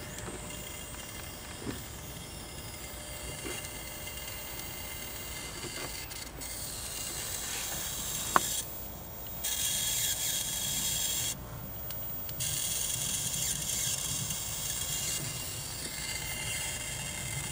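High-voltage hissing and arcing from the high-voltage section of a 1974 Wards Airline portable color tube television that has just been powered up: a steady high hiss that drops out twice for about a second, with one sharp click about eight seconds in. The hiss is high voltage leaking off as corona and arcing.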